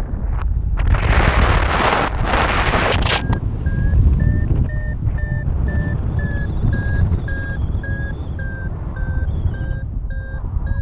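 Wind rushing over the microphone in flight, with a loud gust in the first few seconds. From about three seconds in, a paragliding variometer beeps steadily about twice a second, its pitch wavering slightly: the climb tone that signals the glider is rising.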